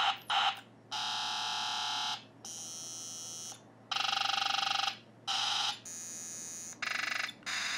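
Circuit-bent toy ray gun's electronic sound chip firing a run of buzzy, alarm-like blasts through its small speaker, about seven in a row, each half a second to a second long with short gaps, some louder than others. These are the gun's alternate sounds, switched on by tilting the added mercury switch.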